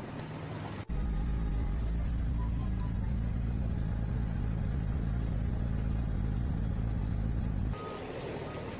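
Steady low engine rumble, cut in abruptly about a second in and cut off abruptly near the end.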